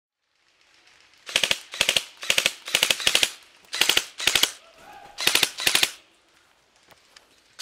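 Airsoft electric gun firing a string of short full-auto bursts, three or four sharp snaps each, about two bursts a second.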